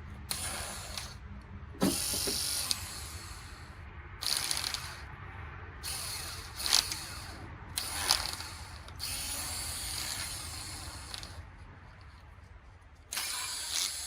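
A hand tool, most like a ratchet wrench, being worked in about seven short bursts of a second or two each, with a few sharp clicks.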